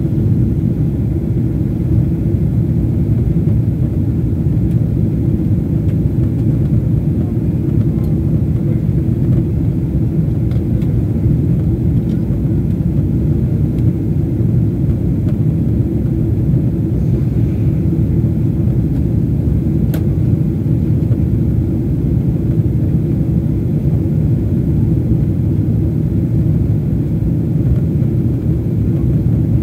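Steady low roar of a jet airliner's cabin noise in flight.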